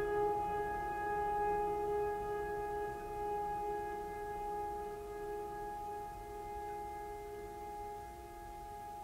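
Background music: one long held drone tone with overtones, slowly fading.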